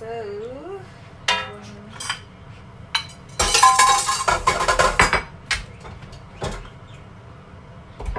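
Kitchen utensils and dishes clinking and clattering: a few separate knocks, then a loud dense clatter with a brief metallic ringing lasting nearly two seconds, and a couple of single knocks after it.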